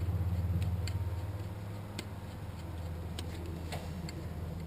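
A few separate clicks and ticks from hand tools as a bolt is fitted and tightened, over a steady low hum.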